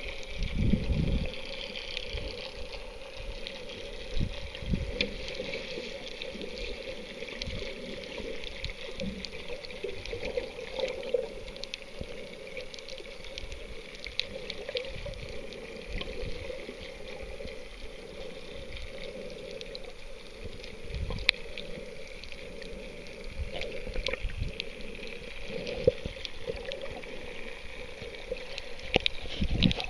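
Muffled underwater sound from a camera held under the sea while snorkelling: a steady wash of water with irregular low thumps and scattered faint clicks.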